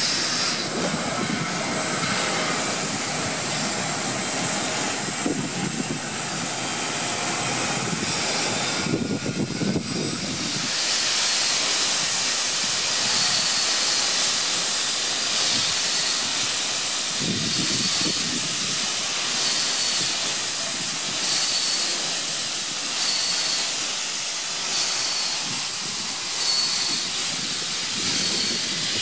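Steam locomotives hissing steadily and loudly as steam vents around their cylinders and wheels, with a low rumble underneath for the first ten seconds or so and again briefly later.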